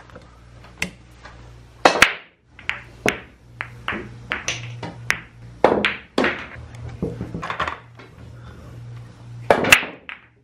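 Pool balls clacking against each other: a string of sharp clicks at irregular intervals, some loud and some faint, over a steady low hum.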